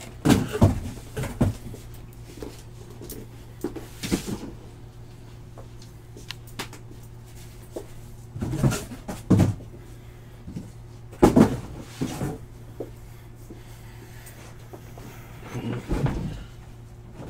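Knocks and thumps from a cardboard case of boxed trading cards being handled, in five short clusters a few seconds apart, over a faint steady hum.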